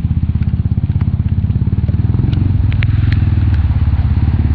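KRY 200 dirt bike's engine running steadily under throttle as it wades through floodwater, its note rising a little about two seconds in, with a few sharp clicks over it.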